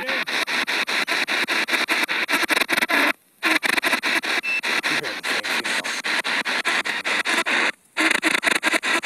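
Spirit box radio sweep played through a small Altec Lansing portable speaker: static chopped about nine times a second as it scans stations, with brief snatches of radio voice, one of which near the start the uploader hears as 'did'. The sweep cuts out twice for a split second.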